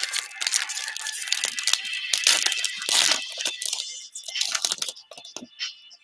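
Foil wrapper of a Panini Prizm basketball card pack crinkling and crackling as gloved hands handle and tear it, dying down near the end.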